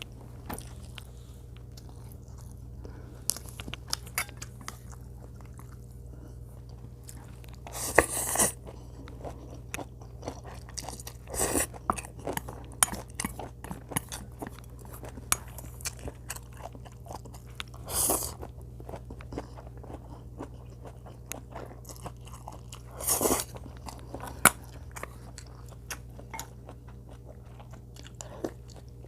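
Close-up chewing and biting of food, with many small wet clicks and crunches. Four louder bursts about half a second long come every five seconds or so, over a steady low hum.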